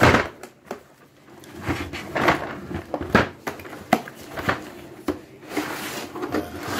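Packaging of a boxed socket set being handled and opened: irregular clicks and knocks with rustling, a sharp knock right at the start.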